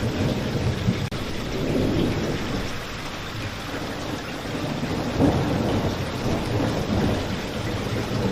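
Steady heavy rain with low thunder rumbling under it, swelling about five seconds in, with a momentary drop-out about a second in.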